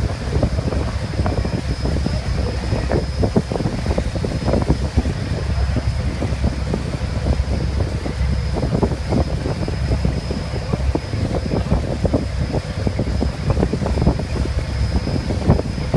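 Wind buffeting the microphone on the open deck of a moving ferry, over the boat's steady low engine rumble and the wash of water along the hull. A thin steady high tone sits above it.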